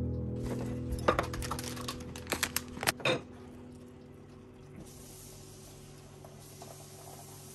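Background music fading out under a quick run of sharp clinks of tableware, then, from about five seconds in, a faint steady hiss of hot water being poured from a kettle into a glass pitcher to steep tea.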